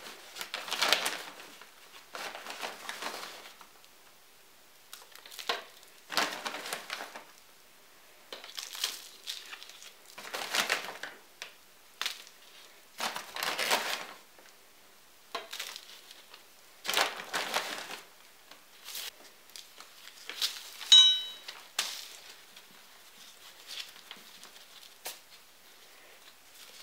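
Repeated bursts of rustling and crunching from potting soil and its plastic bag being handled, with loose soil packed around a potted camellia over newspaper. About 21 seconds in comes a short, sharp ringing squeak or clink, the loudest sound.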